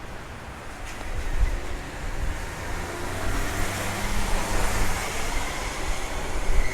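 Road traffic: a motor vehicle's engine running nearby, with a low rumble, its pitch rising about halfway through and a whine building near the end.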